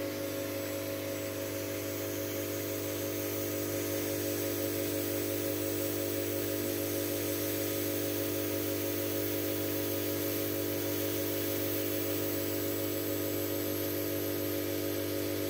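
Diode laser engraver with air assist running a cut: a steady hum and buzz from its fan, motors and air pumps, over an even airy hiss.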